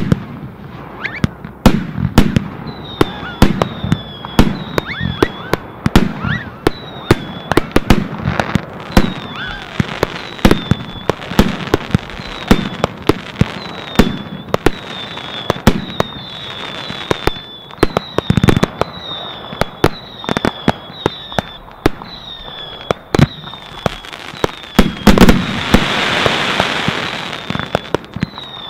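A fireworks barrage: a rapid, irregular series of sharp bangs from aerial bursts, with short high falling chirps repeating about twice a second through much of it. Near the end a louder stretch of hissing crackle.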